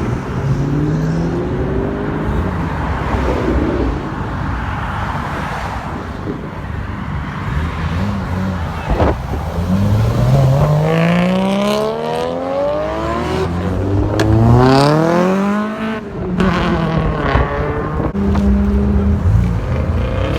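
A performance car's engine revving hard as it accelerates away, its pitch climbing steeply in repeated pulls broken by gear changes, over the low rumble of other engines.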